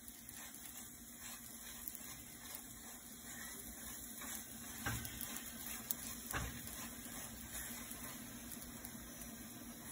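Faint sizzling and crackling of a paratha frying on a hot cast-iron tawa as oil is brushed over it with a silicone brush, over a steady low hum. A few light knocks midway, a couple of seconds apart.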